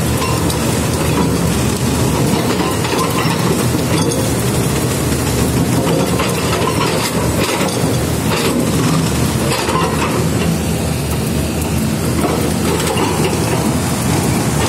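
Hydraulic breaker on a Caterpillar excavator hammering into a reinforced concrete wharf deck slab, a continuous rapid rattle of blows, with the excavator's engine running underneath.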